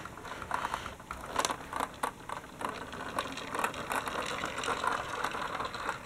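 Plastic toy articulated bus rolling along a cardboard road, with an irregular clicking and rattling from its wheels and mechanism.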